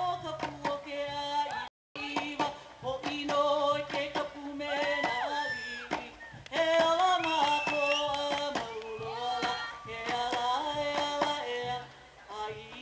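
Hawaiian chant (mele) for hula kahiko: a voice chanting in held, wavering notes over struck percussion beats. The sound cuts out briefly about two seconds in.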